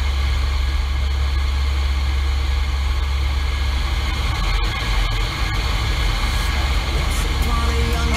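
Steady low drone of a C-130T Hercules's four Allison T56 turboprop engines and propellers, heard inside the cockpit.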